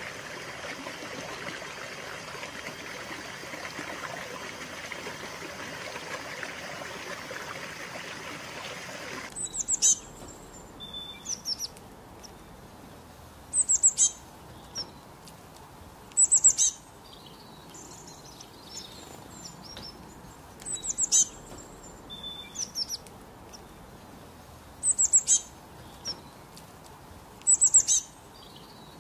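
Running stream water splashing steadily, cutting off abruptly about nine seconds in. Then a songbird sings short, high phrases every couple of seconds over quiet outdoor background.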